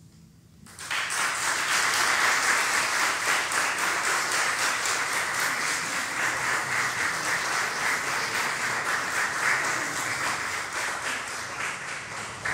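Audience applause breaking out about a second in, after a brief hush, then continuing steadily.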